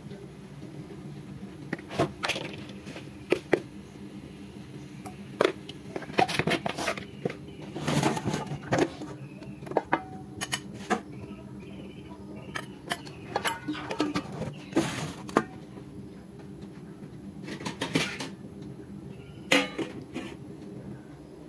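Irregular clinks and knocks of metal pots and kitchen utensils being handled, over a steady low hum.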